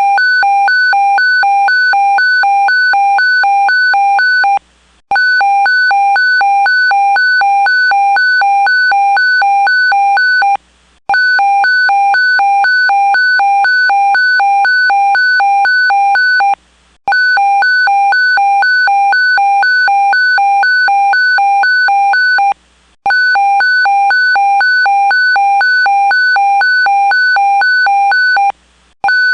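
Electronic evacuation alarm sounding an earthquake alert: a loud, rapid electronic beeping at about three beeps a second, in runs of about five and a half seconds broken by short pauses.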